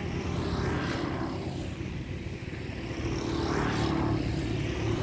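A steady engine drone, with a hum low down and a hiss higher up that swells and fades.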